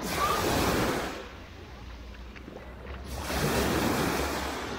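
Small Black Sea waves breaking and washing up on a sandy shore, twice: one surge in the first second and another about three seconds in, each swelling and dying away over a second or so.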